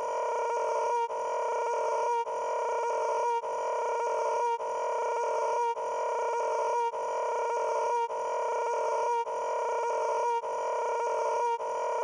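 A short pitched sound clip looped over and over, about eleven times, each repeat lasting a little over a second and cut off by a brief break before the next.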